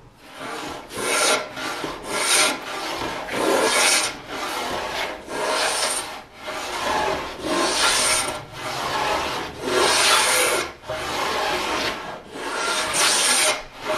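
Combination plane cutting a moulding profile along the edge of a wooden board: repeated shaving strokes, about one a second, each a rasping hiss of the cutter through the wood.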